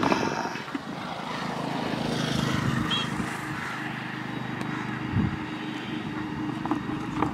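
A motor engine running steadily in the background, swelling slightly about two seconds in and then holding level.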